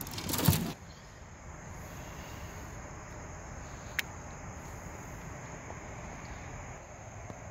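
Steady high-pitched chirring of crickets over a faint outdoor background. A brief loud clatter comes right at the start, and a single sharp click about four seconds in.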